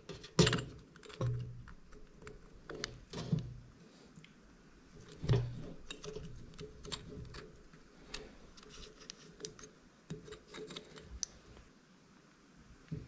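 Hard plastic parts of a tungsten-sharpener attachment being handled and fitted onto a rotary tool: irregular clicks, taps and knocks, the loudest about half a second in and again about five seconds in. The tool's motor is not running.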